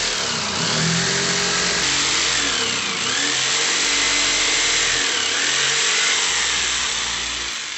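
Electric jigsaw sawing through a sheet of plywood, the motor's pitch rising and falling several times as it cuts, trailing off near the end.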